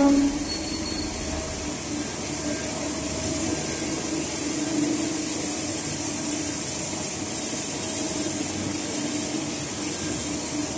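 Steady drone of a shop floor of running Citizen L32 Swiss-type CNC lathes: a continuous low hum with a thin high hiss over it.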